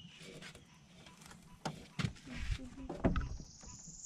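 Scattered knocks and clunks on an aluminium fishing boat as a rod and line are handled, with a faint high thin whine near the end.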